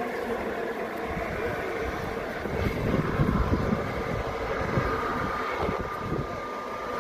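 Jet engines of an Azores Airlines Airbus A321neo running as it taxis and turns onto the runway: a steady rumble, with a thin whine coming through about five seconds in.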